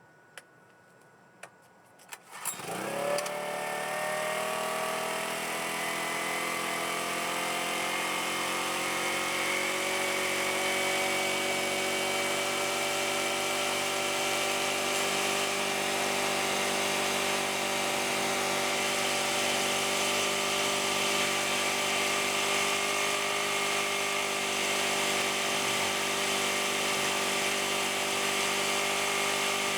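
AIRMAN EP2300 portable generator starting after a few clicks: the engine catches about two and a half seconds in, its pitch rises quickly and then it runs steadily.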